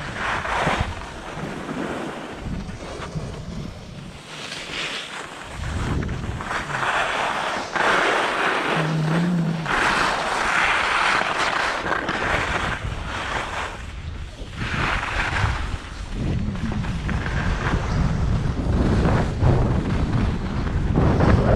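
Wind buffeting a skier's camera microphone, with the hiss of skis carving across packed snow swelling in bursts with the turns. The wind rumble grows heavier over the last few seconds.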